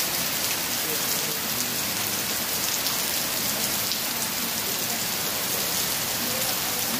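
Heavy rain falling steadily on a wet flagstone patio, with water pouring off thatched roof eaves.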